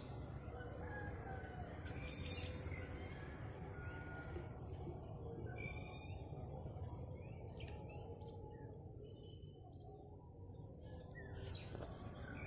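Wild birds chirping and calling outdoors, with a quick run of three sharp high chirps about two seconds in and scattered short whistled notes after it. A steady low rumble runs underneath.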